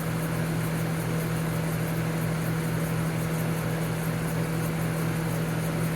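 Montgomery Ward dehumidifier running: its compressor and fan give a steady low hum with a fast, even flutter.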